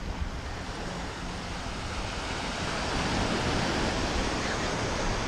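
Surf breaking and washing up the sand, swelling about two seconds in, with wind rumbling on the microphone.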